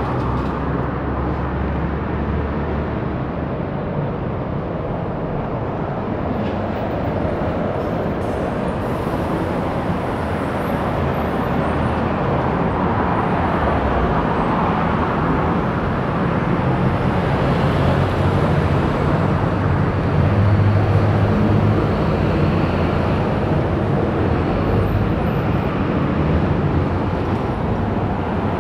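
City street traffic: cars and a bus passing, a steady rumble of engines and tyres with a low engine hum.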